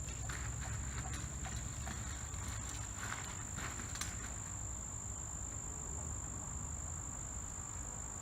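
A steady, unbroken high-pitched insect trill over a low rumble, with a few faint clicks about three and four seconds in.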